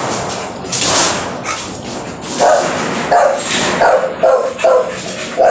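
A dog barking repeatedly, about six short barks starting about two seconds in, over a steady rushing noise from the washing machine.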